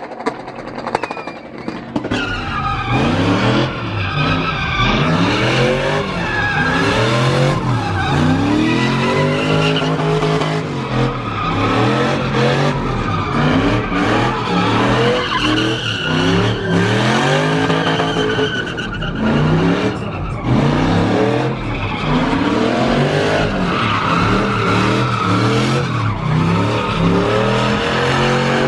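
Pickup truck engine revving hard, its pitch rising and falling over and over, with the tyres squealing as it spins donuts in a burnout.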